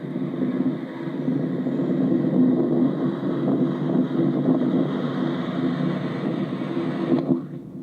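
Hino bus's diesel engine running under load, heard from on board with a steady low drone, until the sound drops suddenly near the end.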